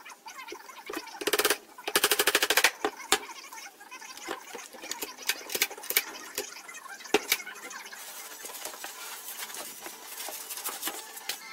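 Two short bursts of rapid mechanical clicking while a metal handle is fastened to a wooden box, followed by scattered light taps and knocks of handling.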